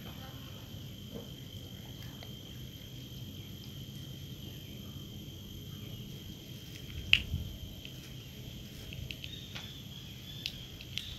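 Scissors snipping a plastic drinking straw: a few short, sharp clicks, the loudest about seven seconds in. A steady high-pitched tone hums underneath.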